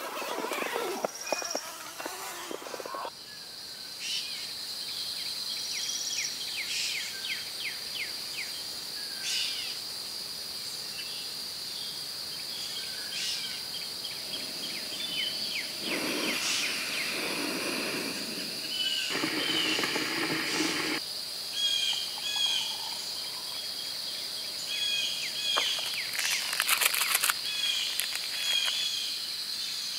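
Birds chirping and calling over a steady high-pitched insect drone. A few short stretches of noise, likely handling or rustling, stand out near the start and midway.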